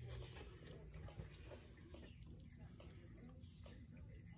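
Faint, steady, high-pitched chirring of crickets or similar insects, over a low background rumble.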